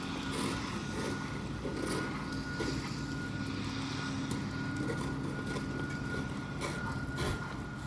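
Steady low humming drone of unknown origin, with a thin steady high tone above it.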